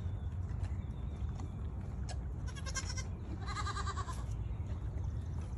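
Goats bleating with a quavering call: a faint one about two and a half seconds in and a louder one about three and a half seconds in, over a low steady rumble and scattered clicks.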